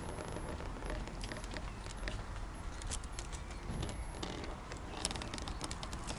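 Wicker bicycle basket and its wire cover rattling and clicking irregularly as the bike rides along, over a steady low rumble of wind and road.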